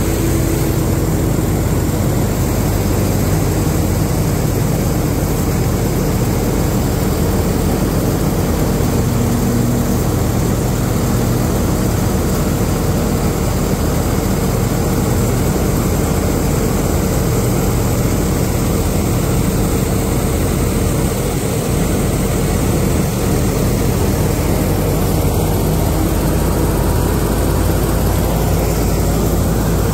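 Tractor-driven multi-crop thresher threshing wheat: the thresher drum and fans run with a steady, loud whir over the Swaraj 855 FE tractor's diesel engine, which drives it through the PTO.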